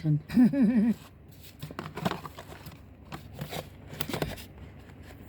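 A brief wavering hum from a person in the first second, then scattered light rustling and clicks of papers and small items being handled.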